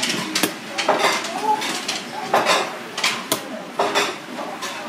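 Irregular metallic clinks and knocks of kitchen utensils against stainless-steel pans and trays, including a metal scoop working a steel tray of flour while cutlets are breaded.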